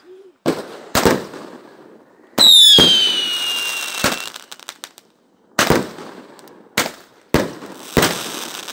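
A 25-shot, calibre-30 fireworks cake firing its shots one after another, with sharp bangs coming roughly once a second. About two and a half seconds in, one shot carries a whistle that falls in pitch and lasts about a second and a half.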